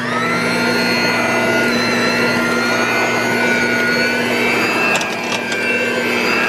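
Handheld electric mixer running steadily, its beaters mashing boiled potatoes in a stainless steel pot: a steady motor whine, with a few clicks about five seconds in.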